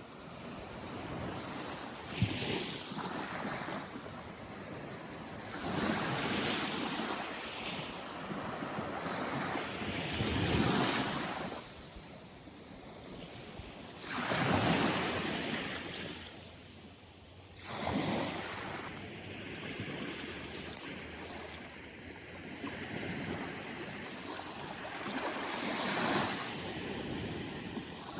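Small Caribbean Sea waves washing in at the shoreline, one after another, a swell of surf every three to four seconds.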